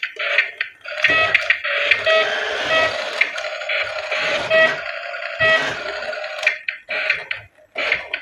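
Toy remote-control bus's built-in sound module playing a tinny electronic tune through its small speaker, a short beeping phrase repeating about once a second, breaking into short bursts with gaps near the end.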